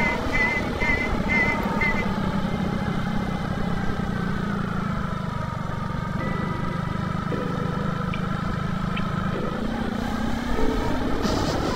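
Motorcycle running at road speed, with wind rumble on the microphone. The engine note eases off midway and picks up again toward the end.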